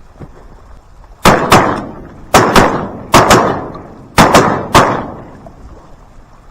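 A rapid volley of shotgun fire at ducks: about nine shots in a little over three seconds, mostly in quick pairs, each ringing off.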